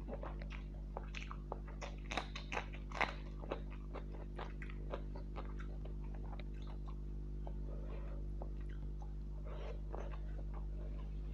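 Close-up eating sounds: chewing and biting into a meal of fish curry, vegetables and rice, with many short wet clicks and crunches, busiest in the first few seconds and thinning out after. A steady low electrical hum runs underneath.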